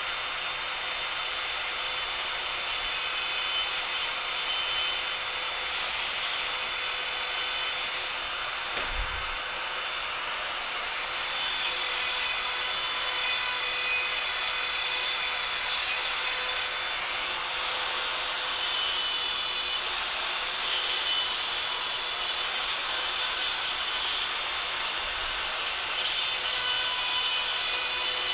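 Dremel rotary tool with a small grinding wheel running at speed, grinding and deburring the cut inner edges of steel flex conduit. A steady high whine under a gritty grinding hiss that swells a little now and then as the wheel bears on the metal.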